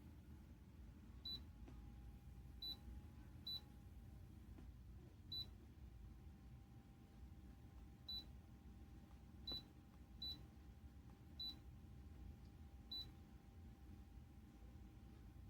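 Short, high electronic beeps, about nine at uneven intervals, as on a Dreo ultrasonic humidifier's touch control panel when its buttons are pressed, over a faint steady hum.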